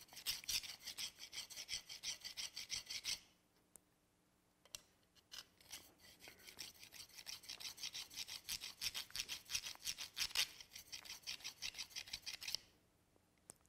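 Carbide router bit's flat face rubbed back and forth on a fine 1200-mesh (9 micron) diamond hone to refresh the cutting edge. It makes a quick, even scraping at about three strokes a second, stops for a couple of seconds about three seconds in, then starts again until near the end.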